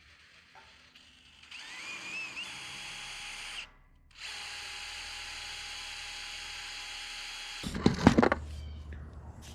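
Power drill driving screws into a steel bracket: the motor whines up in two runs with a short pause between, then a burst of loud knocks near the end.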